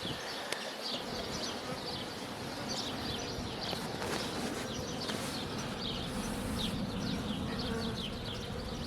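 Honeybees buzzing in a steady hum around an open hive of Carniolan bees, with brood frames lifted out for inspection.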